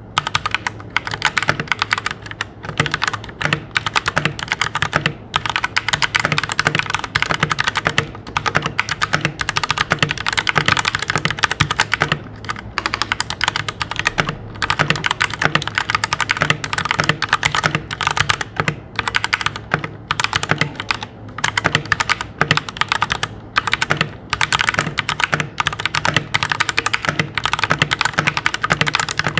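Steady, fast typing on a Royal Kludge G68 mechanical keyboard with linear RK red switches: a continuous run of keystroke clacks, broken only by short pauses. The stabilizers are lubed, and the stabilizer wires make little noise.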